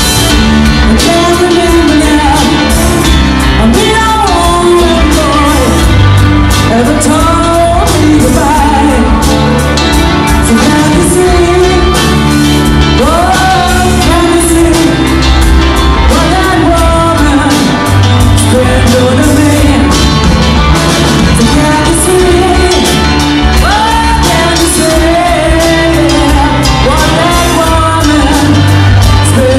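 A live rock band playing loudly: electric guitars, bass guitar and drum kit, with a lead singer singing the melody over them.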